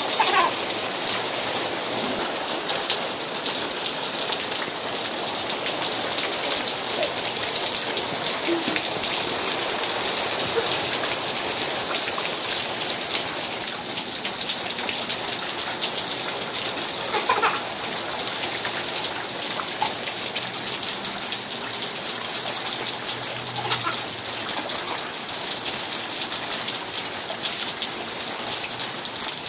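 Steady rain falling on a wet concrete patio and puddles, an even hiss.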